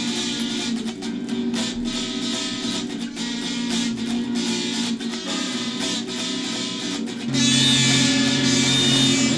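Instrumental music led by strummed guitar, which gets louder and fuller a little after seven seconds in.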